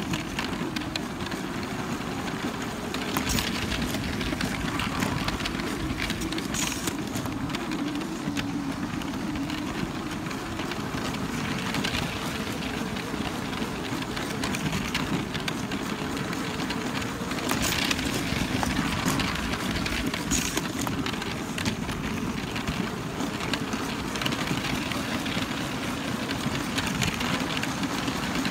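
Toy Lego train running on plastic Lego track: a steady electric motor whine that wavers slightly in pitch, over wheels rattling along the track, with a few sharp clicks.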